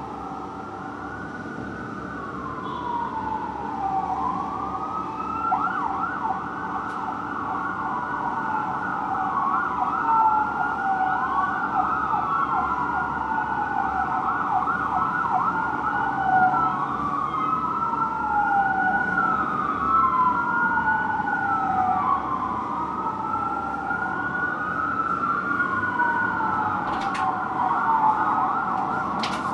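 Fire engine and aerial ladder truck sirens on a slow wail, two or more sirens rising and falling out of step so their sweeps overlap, growing louder over the first few seconds as the apparatus approach. A few sharp clicks near the end.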